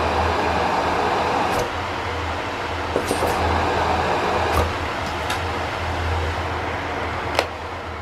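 Miele S8 UniQ canister vacuum cleaner running: a steady rushing of air over a low hum that swells and eases as the hose's end fitting is held at and moved around the suction inlet. Several sharp plastic clicks come from the fitting being handled, the loudest near the end.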